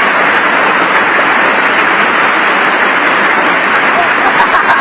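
Hailstorm: hail and heavy rain coming down hard in a dense, even hiss with no letup.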